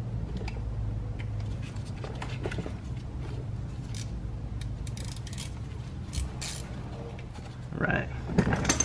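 Hand driver with a T30 Torx bit turning a screw into the thermostat housing: scattered light clicks and ticks of the tool on metal over a steady low hum.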